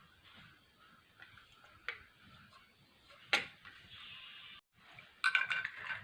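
Scattered clicks and knocks of the cloth cutter and its plug being handled, one sharp click loudest about a third of the way in. Near the end a rooster starts crowing.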